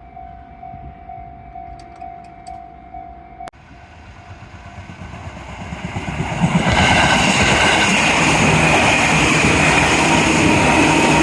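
Japanese level-crossing warning bell ringing, a steady repeated tone that stops suddenly about three and a half seconds in. A train then approaches and passes loudly over the crossing from about seven seconds in.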